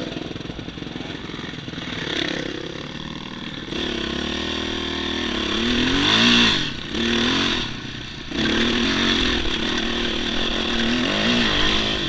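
Yamaha dirt bike engine pulling up a loose gravel climb. The revs rise and fall about six seconds in, drop away briefly near the eight-second mark as the throttle closes, then the engine runs steadily again.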